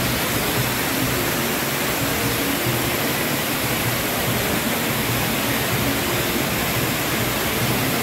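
Waterfall's steady rush of falling water, loud and even throughout.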